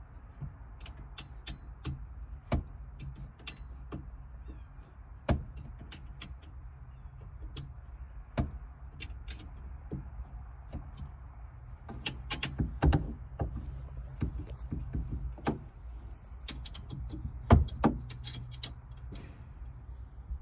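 Irregular light clicks and knocks of tools and metal parts, with a few louder knocks, as a harness support bar is worked into place and screwed down, over a low steady hum.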